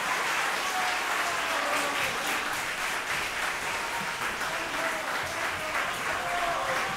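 Audience applauding steadily: a dense patter of many hands clapping, with a few voices heard among it.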